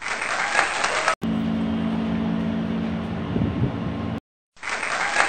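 Steady low mechanical hum inside a railway passenger car, with a rushing noise in the first second and again near the end. The sound cuts out abruptly about a second in and again after about four seconds.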